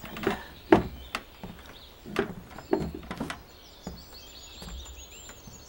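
Birds chirping faintly in the background, with a few irregular knocks and thumps.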